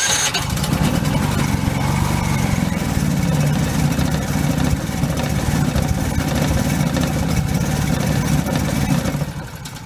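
Cummins Onan 2800-watt gas generator starting from its start button and running steadily, then winding down about nine seconds in as it shuts off. It stops on a blinking fault code, which the owner puts down to something left switched on inside the van.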